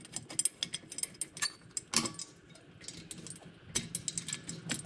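Irregular small metallic clicks and clinks of steel bolts being handled and threaded by hand into an air compressor pump's cylinder head.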